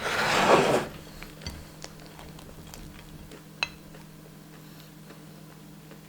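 Eating at the table: a short loud burst of noise right at the start, then soft eating sounds with light clicks and one sharp clink of tableware about three and a half seconds in.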